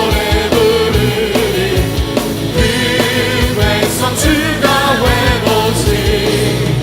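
Contemporary Christian worship music: singing over a full band with a steady drum beat.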